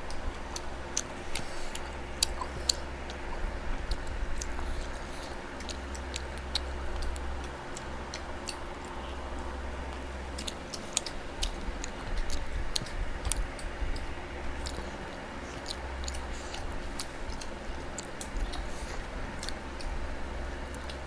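Close-miked chewing, with frequent sharp, wet mouth clicks and smacks as someone eats a meal of roti and chicken curry.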